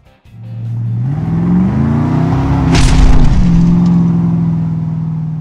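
Outro sound effect of a car engine revving up, with a loud crash about three seconds in, then the engine note held steady and slowly fading.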